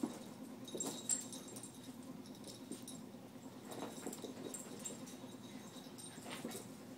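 Two small dogs, a Shorkie and a Morkie, play-wrestling on carpet: scuffling and shuffling with a few sharp knocks, the loudest at the start and about a second in.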